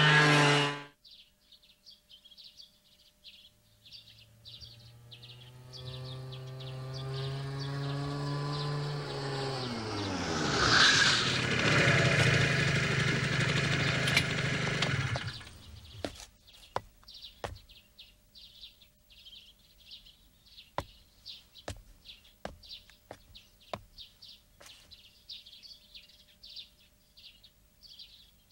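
A motorcycle engine: a brief loud pass cut off under a second in, then a motorcycle approaching, its note dropping as it slows, running near idle and switched off about fifteen seconds in. After that, birds chirp softly, with a few scattered sharp clicks.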